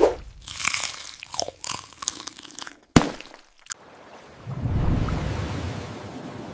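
Crunchy eating sound effects, bites and chewing of something crisp, for about three seconds, with a sharp snap near three seconds in. A low rumble then swells up.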